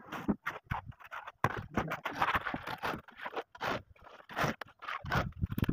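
Gritty scraping of wet concrete being tipped from a metal pan and worked over with a wooden hand float, in a run of short, rough strokes.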